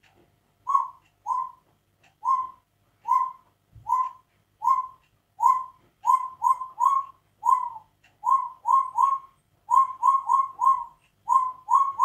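African grey parrot imitating a dog's bark: a long run of short barks, each dipping slightly in pitch. They begin about a second in, spaced evenly at first, then come quicker in clusters of two or three.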